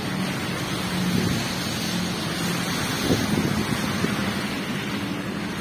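Steady rush of rain and wind noise on a phone's microphone, with a faint steady low hum underneath.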